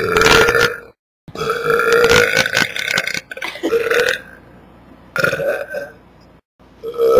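A person burping again and again: a short burp, then a long drawn-out one of about two seconds, then shorter ones, with another loud burp starting near the end. Some burps are separated by abrupt total silences where the recording cuts.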